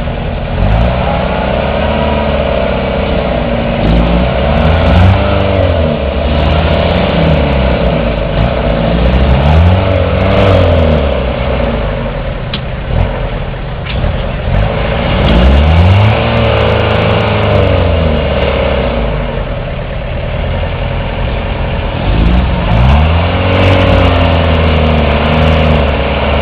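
Toyota 4x4's engine revved again and again, each rev rising and falling over a couple of seconds, as the vehicle works its way up out of a muddy trench, with a quieter spell about halfway through.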